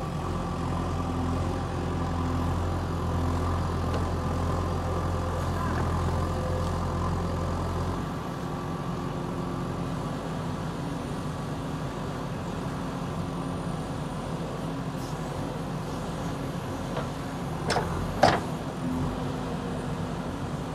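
JCB backhoe loader's diesel engine running under load, a steady drone whose deep low hum drops away about eight seconds in. Two sharp clanks stand out about three seconds before the end.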